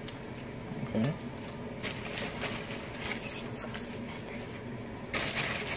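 Soft rustling and light taps of sliced bell pepper being dropped and spread by hand over raw onions and meat in a stainless steel pot, in scattered short bursts with a louder rustle near the end.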